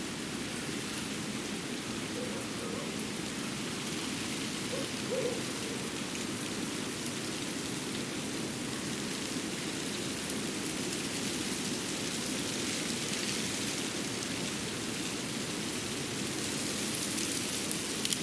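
Winter forest ambience: a steady, even hiss with a light rain-like patter, a brief louder sound about five seconds in and a click near the end.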